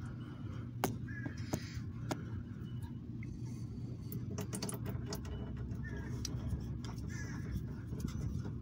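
A few light clicks and taps as a hand feels around the underside of a car near the oil filter, over a steady low hum.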